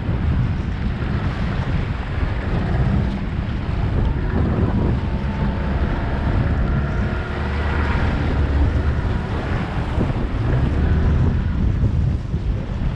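Wind buffeting the microphone as a small boat runs across choppy sea, with water splashing against the hull. A faint engine tone sits underneath, loudest in the middle seconds.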